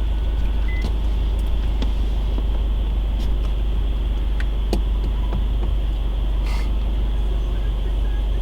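Car running, heard from inside the cabin: a steady low rumble with a few faint clicks.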